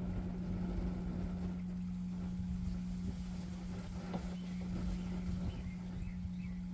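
Wind buffeting the microphone as an uneven low rumble, over a steady low hum. A few faint bird chirps come in near the end.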